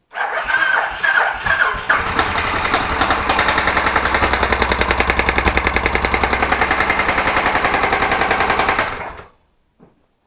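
Kawasaki VN1500 Vulcan V-twin engine starting up, running unevenly for the first couple of seconds and then settling into a steady idle with a fast, even pulse, before it stops about nine seconds in. The motor stood for two years, and the owner hears a strange knock in it.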